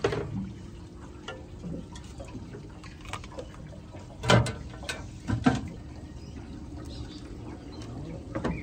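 Scattered knocks and clicks of fishing gear being handled on a boat's bait board, with two louder knocks about halfway through, over a low steady background.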